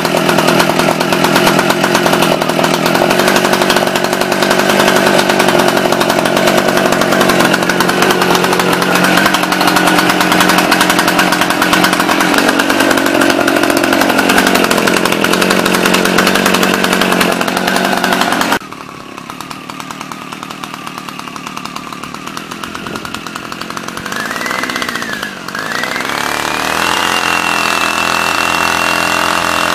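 Small two-stroke engine of a Vulcan VAT-820P backpack mist blower (82.4 cc) running loud and steady. About two-thirds of the way through it cuts to a quieter run, then the engine revs up briefly, drops, and climbs to a steady high speed with a high whine.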